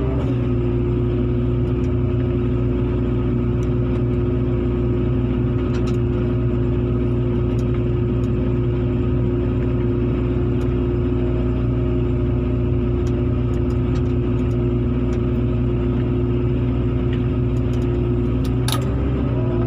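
Heavy diesel engine running steadily under load, a constant drone, its pitch rising slightly near the end.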